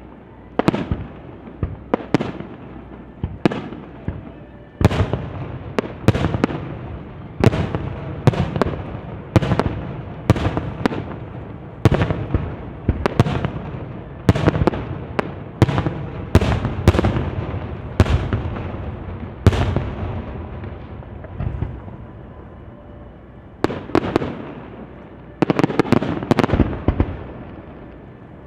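Aerial fireworks shells bursting in quick succession, roughly one to two sharp bangs a second, each followed by an echoing rumble. The bangs thin out to a brief lull about three quarters of the way through, then come thick again near the end.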